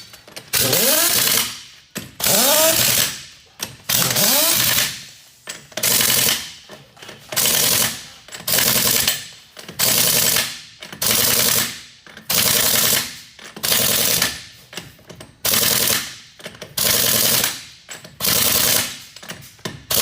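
Pneumatic impact wrench working wheel lug nuts in a series of loud, short bursts, about one every second and a half, some with a whine rising and falling in pitch as the tool spins up.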